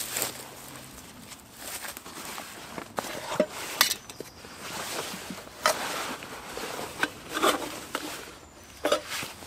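A small metal cooking pot clinking and knocking as it is handled, amid rustling of a canvas rucksack and cloth bag being unpacked.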